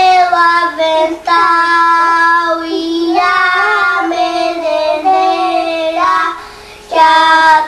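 A young boy singing a children's song with long held notes that step up and down in pitch and short breaks between lines.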